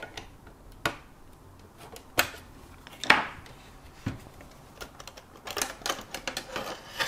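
A graphics card being worked out of its slot in a metal mini-ITX PC case: scattered clicks and knocks of card and bracket against the chassis, the loudest about three seconds in, with a run of quicker clicks near the end.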